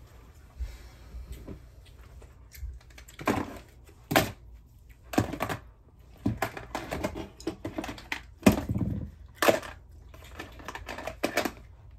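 Irregular clatter and rustling of household objects being picked up, moved and set down while tidying a room, with several sharp knocks; the loudest come about four seconds in and twice more after eight seconds.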